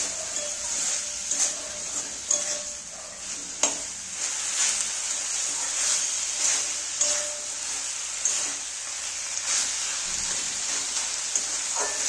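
Chicken mince frying with spices in oil in a metal kadai, sizzling steadily while a metal spatula stirs it and scrapes against the pan in repeated strokes, with a sharp clink about three and a half seconds in.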